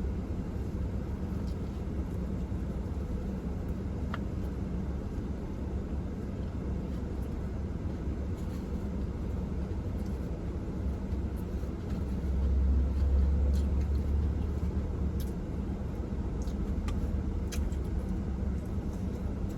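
Steady low vehicle rumble, swelling louder for a few seconds just past the middle, with a few faint ticks.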